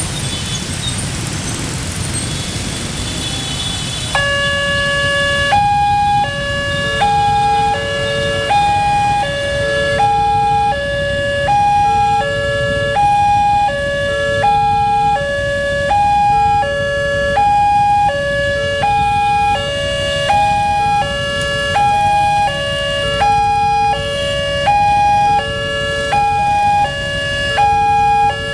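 Indonesian railway level crossing's electronic warning alarm starting up about four seconds in, over the rumble of motorbike traffic: a pattern of a few stepped tones repeating about every second and a half, warning that a train is coming as the barriers close. The crossing has two alarms sounding together.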